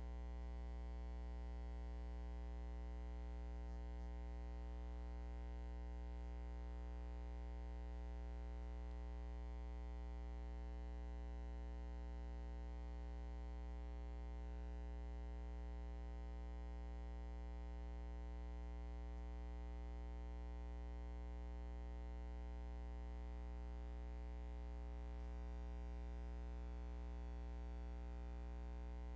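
Steady electrical hum with a stack of evenly spaced overtones, strongest at the bottom, unchanging throughout; no other sound.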